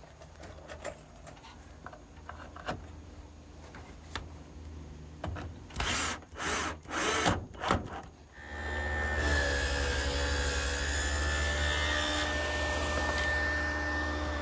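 A power drill-driver whirs in four short bursts about six seconds in, driving screws into wood. A larger woodworking machine then starts and runs steadily with a high whine over a low hum, and near the end it is switched off and begins to wind down.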